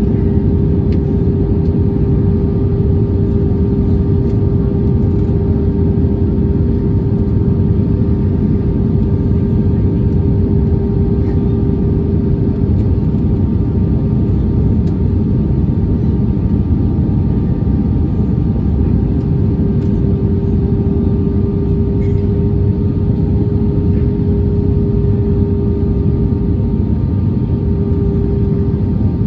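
Cabin noise inside an Airbus A320-232 on approach, heard from a window seat over the wing: its IAE V2500 engines and the airflow make a steady, loud rush with a held tone running through it.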